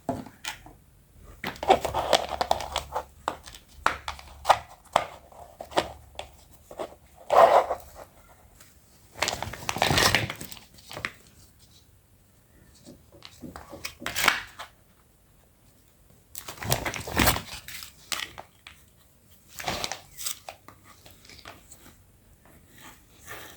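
Toy packaging being unwrapped, crinkling and tearing in irregular bursts, with scattered sharp clicks.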